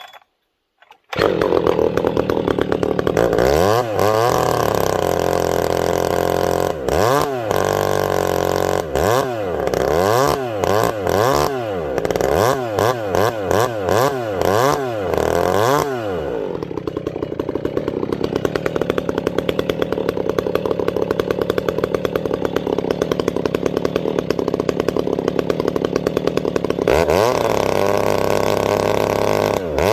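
JK Performance full-house ported Husqvarna 390XP chainsaw with a 32-inch bar. It comes in about a second in and is revved up and down over and over. It then holds a steady speed for about ten seconds before revving again near the end.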